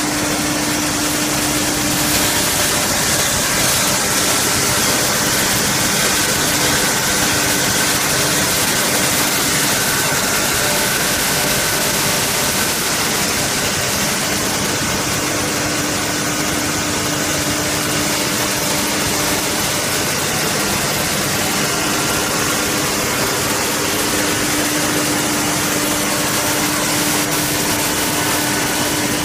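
Steady running noise of straw pellet production line machinery: a constant hum with a steady low tone under a broad, even hiss.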